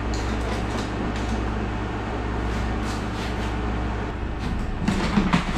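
Steady low machine hum from a wall air conditioner, with light clicks and knocks near the end.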